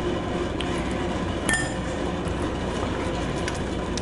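A few light clinks against a plate, about half a second and again a second and a half in, as mashed plantain dough is handled, over a steady background hiss.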